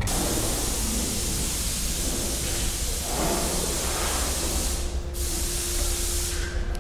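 Wind blowing over the microphone: a steady rushing hiss, with a faint steady hum joining about two-thirds of the way through.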